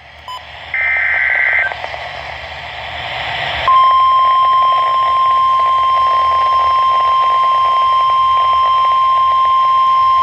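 NOAA Weather Radio broadcast over static: a short burst of SAME digital header data about a second in, then hiss, then a few seconds in the steady 1050 Hz warning alarm tone starts and holds. The tone is the signal that a new warning, here a severe thunderstorm warning, is about to be read.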